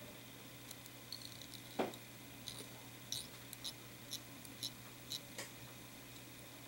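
Faint handling sounds of tying thread being wrapped from a bobbin around a hook in a fly-tying vise: a light knock a little under two seconds in, then soft ticks about every half second for a few seconds.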